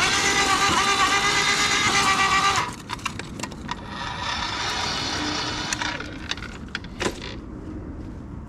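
Ryobi earth auger running under load in soil, a steady pitched motor whine that dips slightly as it bites, cutting off about two and a half seconds in. Then quieter scraping and scattered knocks follow, with one sharp knock about seven seconds in.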